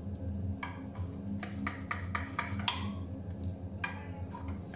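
Knife slicing through a baked revani cake in a glass baking dish, its blade clicking and tapping against the glass with each cut in a quick irregular series, over a steady low hum.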